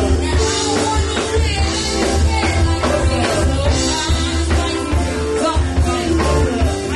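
Live band music with a male singer at the microphone over electric guitar, bass, drums and congas, with a steady beat.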